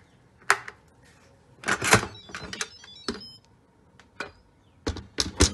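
Instant Pot electric pressure cooker lid being twisted open and lifted off, its pressure already released. A sharp click comes about half a second in, then a longer rattle of clicks and scraping around two seconds in, and several more clicks near the end.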